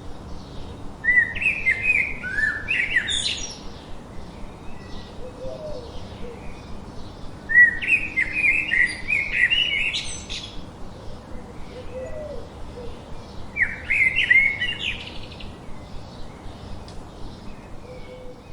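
Songbird singing three warbling phrases of quick rising and falling notes, each about two to three seconds long and a few seconds apart, over faint chirping of other birds.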